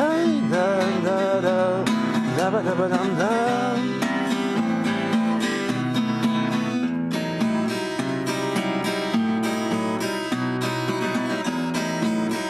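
Acoustic guitar strummed in the closing bars of a bard song, with a wordless sung line wavering over it for about the first four seconds, then the guitar alone.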